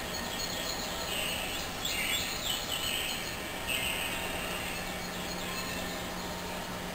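Small birds chirping, played back from a bird videotape through a television speaker, with clusters of calls about two and four seconds in over a steady hiss and a low hum.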